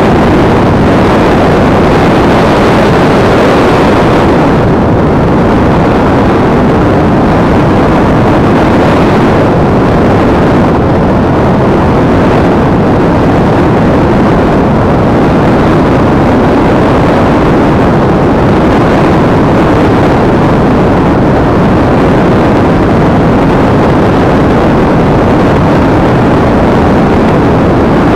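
Loud, steady rush of airflow over an action camera riding on a Multiplex EasyStar RC model plane in flight, mixed with the plane's electric pusher motor and propeller. The higher hiss eases about four seconds in.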